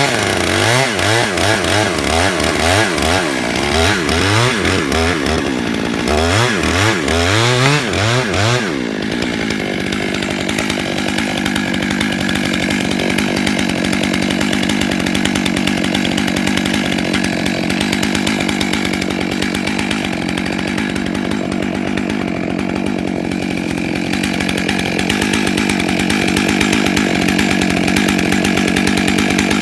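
Two-stroke chainsaw revving up and down over and over for the first nine seconds or so, then running steadily at constant speed for the rest.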